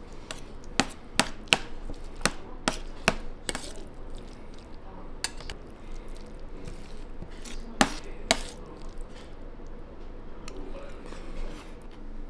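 Metal spoon clinking and scraping on a stainless steel plate as the last of the curry is scooped up. A quick run of sharp clinks comes in the first few seconds, then a few more near the middle, with lighter scrapes between.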